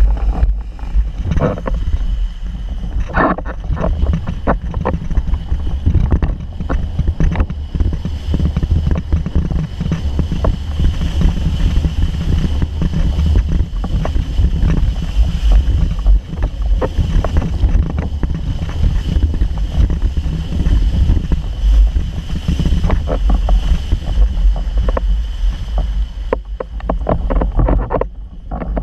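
Wind buffeting an action camera's microphone over water rushing and slapping under a Starboard Rio Large windsurf board moving fast through chop, with many sharp splashes against the hull. It gets quieter near the end.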